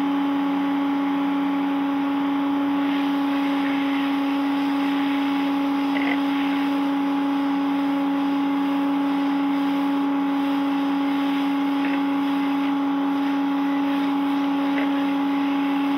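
Michelin MPX 120 B electric pressure washer running, its motor and pump giving a loud, steady hum at one pitch, with the hiss of water spraying from a round surface-cleaner attachment onto paving.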